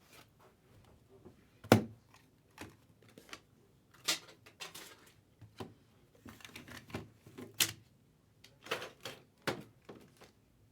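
Irregular sharp taps, clicks and short rustles of things being handled on a table, a dozen or so in all, the loudest a single sharp knock a little under two seconds in.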